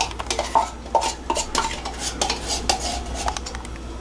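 A metal spoon scraping and clinking against the inside of an opened tin can and an aluminium saucepan while scooping out thick sweetened condensed milk: an irregular run of sharp clinks and scrapes.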